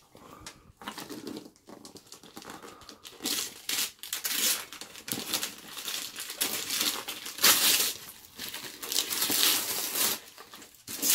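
Gift wrapping paper being torn and crumpled by hand as a present is unwrapped: a string of irregular rustles and rips, the loudest about seven and a half seconds in and again near the end.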